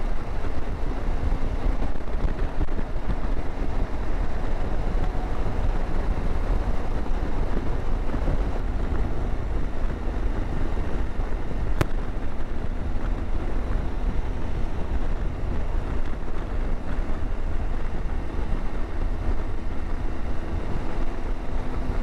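Wind buffeting the microphone on a moving motorcycle, over the steady drone of the engine and road noise.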